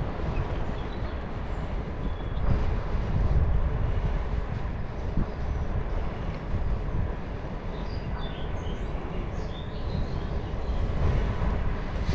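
Wind rumbling over the microphone and rolling noise from a bicycle ride, a constant low, fluctuating rush. A few faint high chirps come through about two thirds of the way in.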